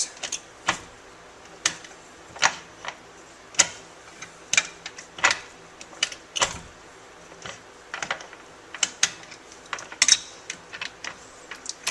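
Muncie four-speed manual transmission being shifted through its gears by hand: a run of sharp, irregular metallic clicks and clunks as the shift mechanism snaps in and out of its detents, checking that it shifts properly after rebuild.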